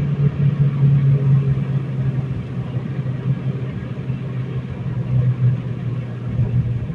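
Honda Civic Si (FG2) coupe's 2.0-litre four-cylinder engine running steadily on the move, a constant low drone over road noise, dropping a little in pitch about five and a half seconds in.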